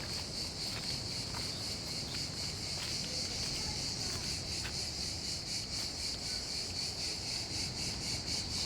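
Steady, high-pitched chirring of an insect chorus in summer vegetation, with a fast pulsing texture that grows more distinct near the end.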